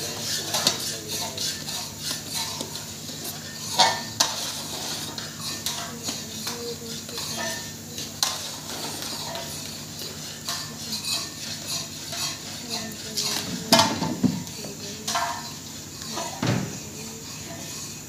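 Long metal paddles scraping and knocking against large metal woks as thick khoa (mawa) is stirred and kneaded, with a sharper clank now and then. A steady low hum runs underneath.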